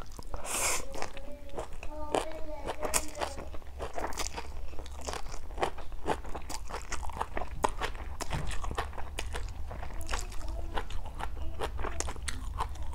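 Close-up mouth sounds of eating stir-fried instant noodles with seafood and greens: a short slurp of noodles about half a second in, then steady chewing with many small crisp clicks and crunches.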